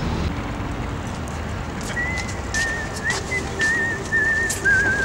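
A whistled tune with warbling, wavering notes and short upward slides starts about two seconds in, with a steady lower accompanying note joining soon after and a few light clicks.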